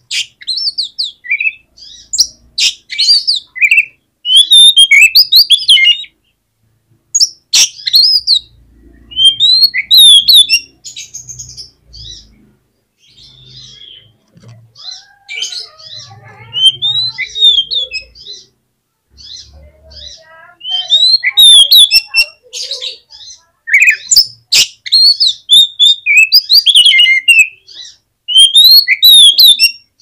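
Oriental magpie-robin singing: loud phrases of quick, varied whistles, chirps and sharp harsh notes, broken by short pauses. The song goes softer and lower for several seconds around the middle, then picks up again.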